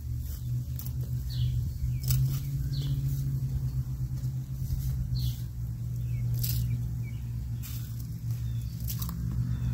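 Steady low machine hum, with a few short crunches and knocks of a metal bulb planter being pushed into and pulled out of garden soil, and brief bird chirps.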